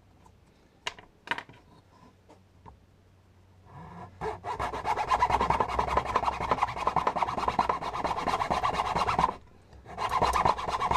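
Coping saw cutting a thin wooden strip with quick back-and-forth strokes, starting about four seconds in, stopping for a moment near the end, then going again. Before the sawing, a few light ticks of a pen marking the wood.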